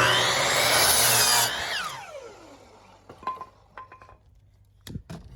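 Electric power saw cutting through a wooden board, then the blade spinning down with a falling whine once the cut ends, about a second and a half in. A few light knocks follow.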